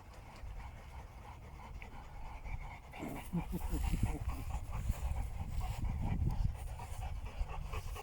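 Puppies and a bulldog panting and scuffling as they play over a ball, growing louder from about three seconds in, with a few short low grunting sounds.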